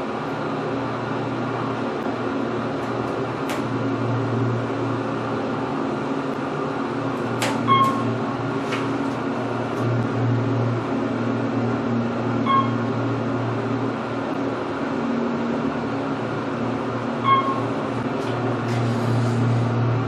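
Elevator riding up, its hoist motor and machinery giving a steady low hum. Three short electronic beeps sound about five seconds apart.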